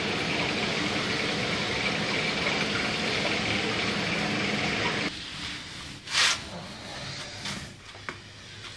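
Steady rushing hiss of water and air circulating through shop aquarium tanks, cutting off suddenly about five seconds in. A short, sharp hiss comes about a second later, then a few faint knocks.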